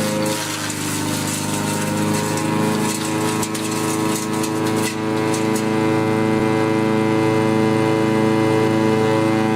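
Engine of a homemade wood chipper running steadily, with crackling and rattling of wood being chipped through the first half; after about five and a half seconds only the engine's steady note continues.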